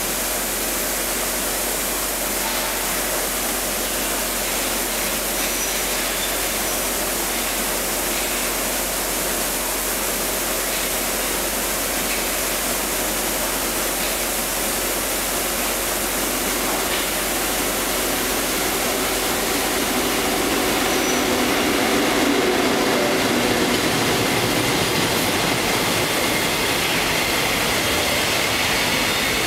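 EF81 electric locomotive hauling a container freight train through a station without stopping: a steady rushing rail noise that builds as the train approaches. It grows louder about two-thirds of the way through as the locomotive goes by, then continues as the container wagons roll past.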